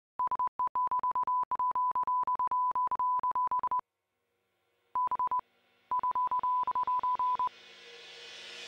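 Morse-code-style beeping sound effect: one steady high tone keyed on and off in short and long beeps, in three runs with brief pauses between. Near the end a rising hissing swell fades in.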